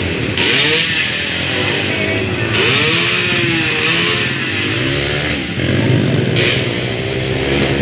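Motocross dirt bike engines revving, their pitch rising and falling again and again over a steady low engine hum.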